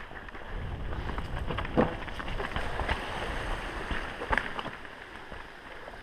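Mountain bike running fast down a dirt singletrack: wind buffeting the microphone over a steady tyre rumble, with a few sharp clacks as the bike hits bumps, about two seconds in and again past four seconds.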